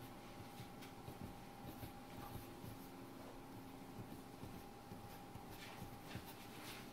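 Faint scratching and rubbing of fingertips pressing and pinching a disc of fresh pasta dough against a stainless steel counter, with a thin steady hum underneath.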